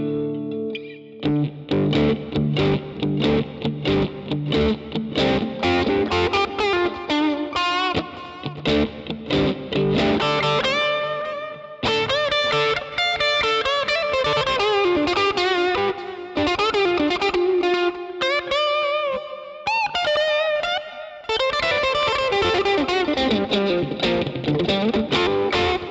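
Electric guitar played through a NUX MG-30 multi-effects processor: an improvised lead line with string bends and vibrato, starting suddenly and pausing briefly twice.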